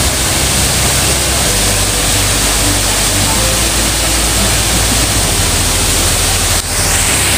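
Large man-made waterfall pouring down a tall wall, a steady loud rush of falling water that dips briefly near the end.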